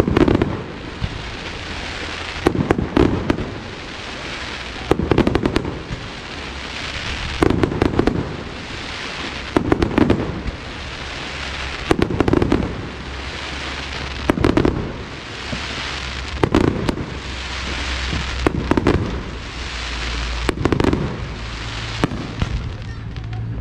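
Aerial fireworks bursting in a steady run of bangs about every two seconds, with crackling and hiss between them.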